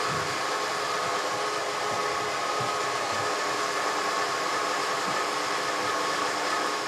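A 1960s Kenwood Chef A701A food mixer running steadily, its AC electric motor and planetary gearbox turning the K-beater through chocolate cake batter, with a steady whine over the motor noise.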